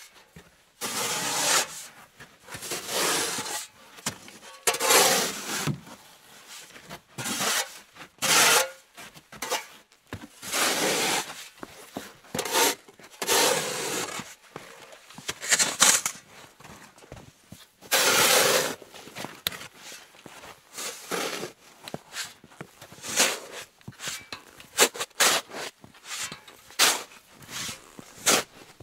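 Snow shovel scraping and scooping snow in repeated strokes, roughly one every two seconds. Near the end the strokes turn into shorter, sharper scrapes and taps.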